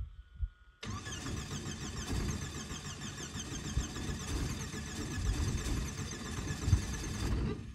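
A Rotorway 162F helicopter's engine being cranked by its starter for about six seconds, starting about a second in and cutting off near the end without the engine catching. The engine is getting no fuel.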